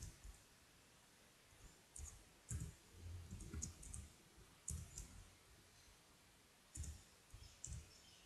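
Faint computer keyboard keystrokes: irregular clicks coming in small clusters as text is typed.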